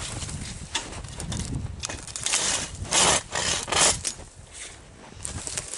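Hand pruning saw cutting through a snow-laden conifer branch: a run of quick, uneven rasping strokes, heaviest around the middle.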